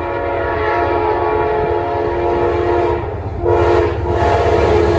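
Amtrak GE P42DC diesel locomotive approaching with its horn sounding: a long chord blast, a short break about three seconds in, then a second blast, over the low rumble of the oncoming train.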